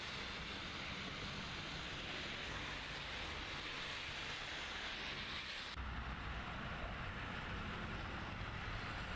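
Water rushing through the open spillway gates of a dam, a steady hissing roar. About six seconds in it changes abruptly to the duller, lower rush of a swollen river, with a low rumble under it.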